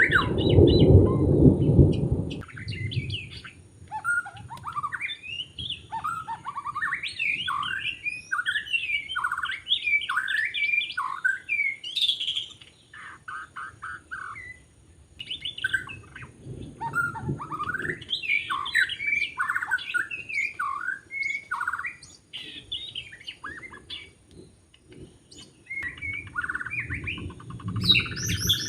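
White-rumped shama singing: quick, varied whistled phrases and chattering notes, delivered in bursts with short pauses between them. A low rumble sits under the song for the first two seconds and again near the end, and a faint steady high whine runs underneath.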